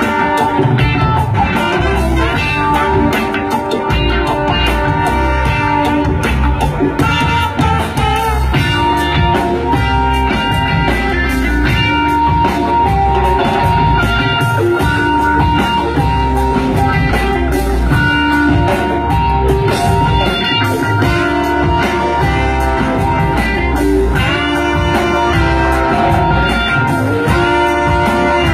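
Live band playing, with electric guitar out front over bass and drums keeping a steady beat.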